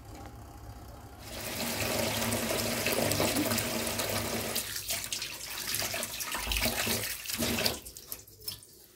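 Kitchen tap running into a sink, water splashing as something is rinsed under it. It starts about a second in, breaks off briefly twice, and stops about a second before the end.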